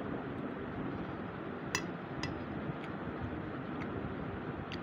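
Metal spoon clinking against a ceramic plate about five times, the sharpest about two seconds in, over a steady low background rumble.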